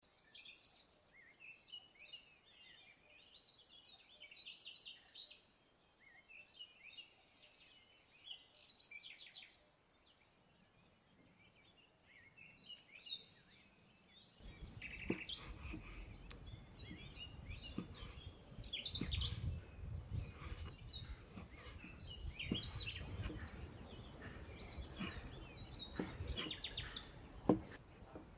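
Small birds chirping on and off throughout. From about halfway, a cleaver knocks now and then on a wooden chopping board as raw meat is sliced, with a sharper knock near the end.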